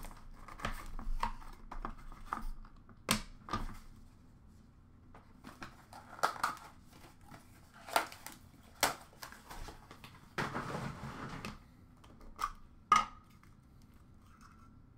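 Hands opening a cardboard box of hockey cards and handling the cards: scattered light clicks and taps of card stock and box, with a rustle lasting about a second about two-thirds of the way through.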